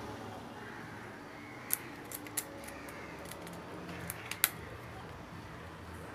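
Small sharp clicks and taps of a hard plastic battery cap and a screwdriver being handled and fitted: a cluster of three about two seconds in and two more around four seconds in, the last the loudest, over a low steady hiss.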